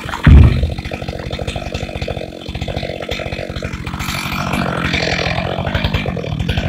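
Stihl MS 462 two-stroke chainsaw idling, with one heavy low thump about a third of a second in as the freshly felled spruce trunk lands.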